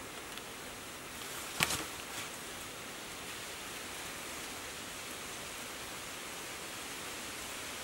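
Steady hiss of background noise, with one sharp knock about a second and a half in as the bamboo poles of the trap are handled.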